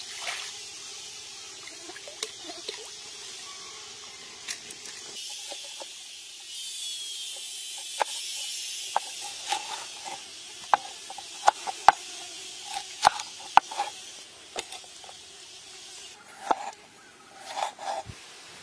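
Water trickling and splashing around hands rinsing husked baby corn in a shallow stream. After a cut, a large knife chops baby corn on a cutting board as a series of sharp, separate knocks, with a louder cluster of cuts near the end.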